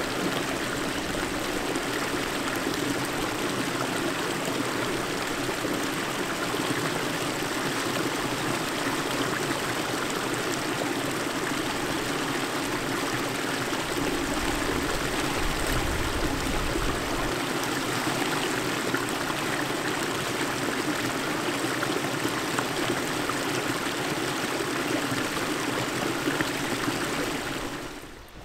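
Small mountain creek running and trickling over rocks, a steady rush of water that cuts off just before the end.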